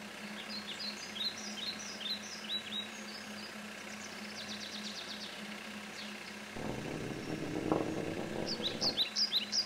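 Birds chirping in quick repeated calls, with a faint steady hum underneath. About two-thirds of the way in a low rumble comes in and builds, and the chirping picks up again near the end.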